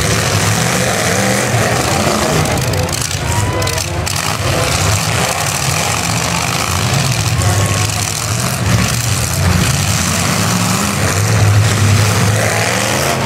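Demolition derby cars' engines running and revving hard as the cars ram one another, with a few dull hits as they collide.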